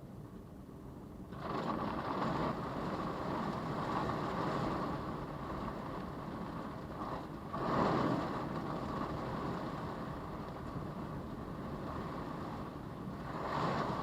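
Storm wind rushing in gusts, picked up by a car's dash camera microphone: it rises sharply about a second and a half in and swells again around the middle and near the end.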